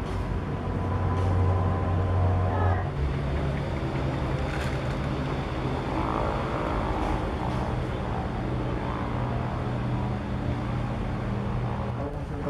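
An engine running steadily, its pitch stepping up once about three seconds in and holding there until it stops near the end.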